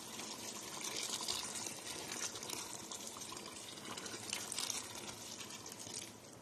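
A stream of water pouring steadily into a large pot of chicken simmering in tomato sauce, filling it with water to cook the chicken. The pouring eases off about six seconds in.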